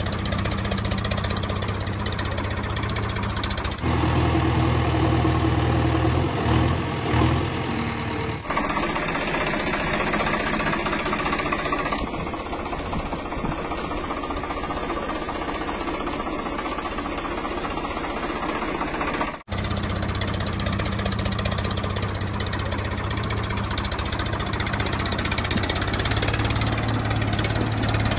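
Tractor engine running steadily, in several spliced stretches that change abruptly about 4, 8 and 19 seconds in.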